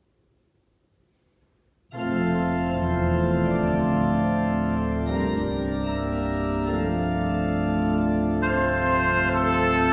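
Church pipe organ entering suddenly about two seconds in with full, sustained chords, playing the introduction to the hymn; the chords shift twice.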